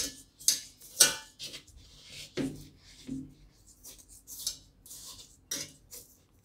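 Salt being spread by hand across the bottom of a stainless steel pot, the grains scraping and rattling on the metal in a run of sharp strokes, loudest in the first second or so, then softer. The salt is being levelled into a bed for baking in the pot on the stove.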